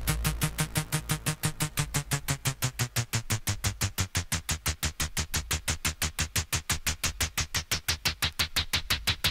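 Electronic synthesizer music playing from a vinyl record on a turntable: a fast, even synth pulse about seven times a second, with the deep bass notes falling away in the first two or three seconds.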